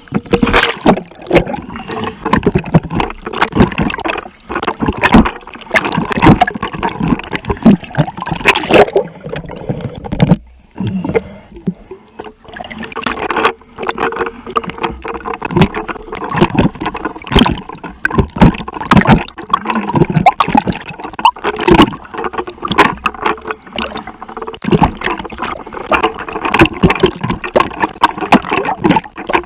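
Seawater splashing and gurgling right at the microphone as a person swims, in loud irregular splashes.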